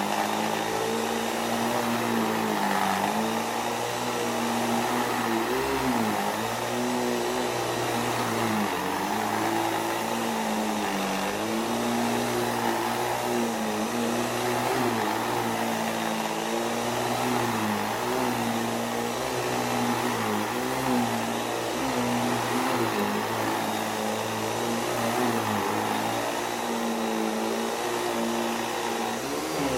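Hoover central vacuum power nozzle running on a rug: a steady motor drone over the rush of suction air, its pitch dipping every second or two as the nozzle is pushed back and forth.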